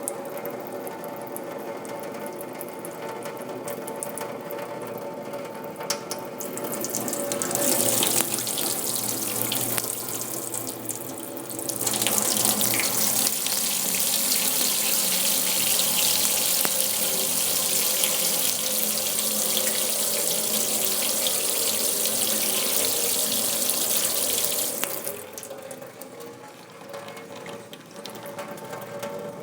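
Water from an old tap running into a steel basin. The flow grows stronger about a quarter of the way in, strongest through the middle, then is turned down to a weaker run near the end.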